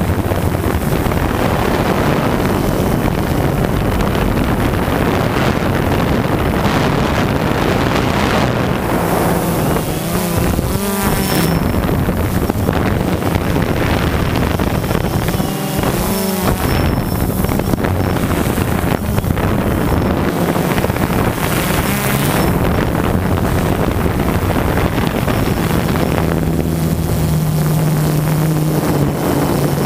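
DJI Phantom 2 quadcopter's motors and propellers running steadily in flight, heard from the craft itself, with wind noise on the microphone. The pitch of the motor tone shifts now and then as the drone changes speed.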